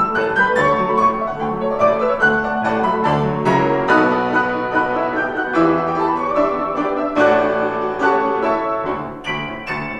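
Grand piano played four hands: a busy passage of quick notes and chords, growing a little softer near the end.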